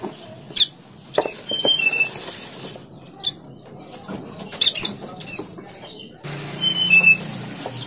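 Bar-winged prinia nestlings in their grass nest giving short, high squeaky chirps, mixed with clicks, knocks and rustling as a plastic tray and a mat are handled and set down beneath the nest.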